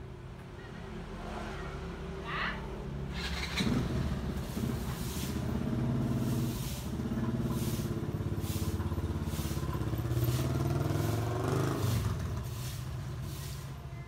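A motor vehicle engine running close by, coming in about three and a half seconds in, strongest toward the end, then easing off. Over it, a stiff broom swishes on the tiled yard in repeated strokes.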